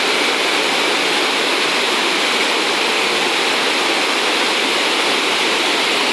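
Floodwater of the Saale pouring over a weir and churning in the white water below it: a steady, loud rushing with no breaks.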